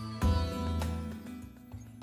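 Soft instrumental background music: held notes, with a new chord and a deep bass note coming in about a quarter second in and fading away.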